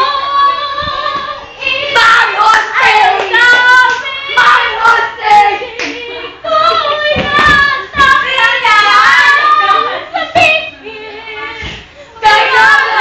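A girl singing unaccompanied, close to the phone's microphone, with a few sharp knocks scattered through the singing.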